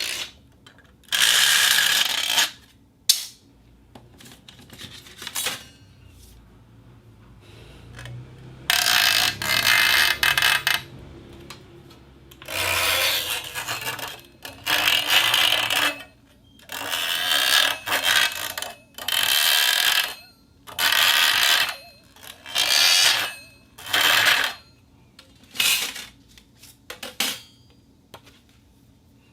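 Thin steel sheet being handled and scraped for foley: a series of metallic, noisy strokes lasting a second or two each, with short clicks in between.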